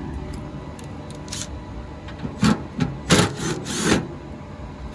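About four short, loud scraping rubs in quick succession in the second half, hard parts rubbing against each other.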